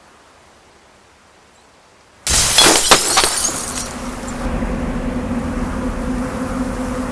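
Faint hiss, then a little over two seconds in a sudden loud crash with several sharp strikes, settling into a steady low buzzing drone.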